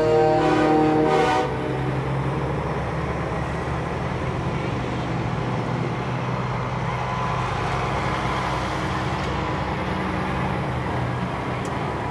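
A semi truck's air horn sounding a chord of several notes, cutting off about a second and a half in. Then the steady low rumble of big-rig diesel engines as the trucks drive past.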